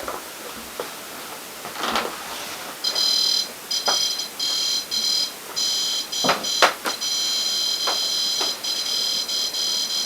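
High-pitched electronic alarm beeping, starting about three seconds in as short broken pulses and then running nearly unbroken to the end. A few sharp clicks or knocks come before and under it.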